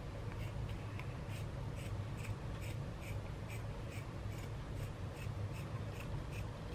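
Scissors cutting through knit fabric in a steady run of short snips, about three a second, over a low steady hum.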